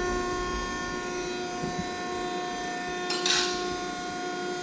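Hydraulic press brake's pump running with a steady hum of several tones, a low rumble dying away about two seconds in. About three seconds in comes a short scraping hiss.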